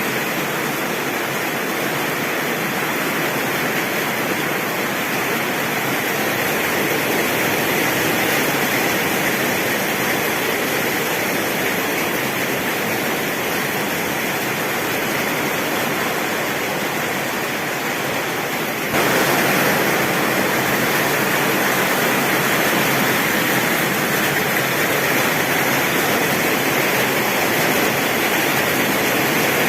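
Heavy rain pouring steadily on a tin roof, a dense, even hiss. About two-thirds of the way in, it abruptly grows louder.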